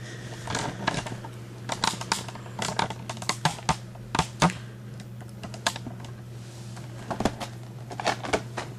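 Irregular clicks and knocks from a camera tripod being moved and its joints adjusted, with the plastic blister pack of an action figure being handled.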